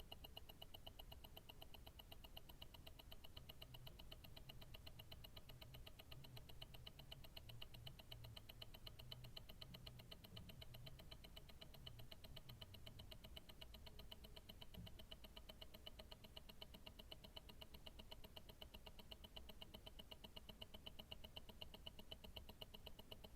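Invicta Grand Octane tourbillon watch movement ticking, picked up through a stethoscope: a faint, fast, perfectly even tick of the escapement.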